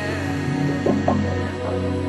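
Music: slow, held chords with a few soft notes sounding over them.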